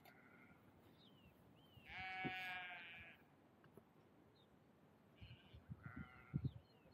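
A sheep bleats once, a long call about two seconds in, over faint bird calls. A few soft knocks come near the end.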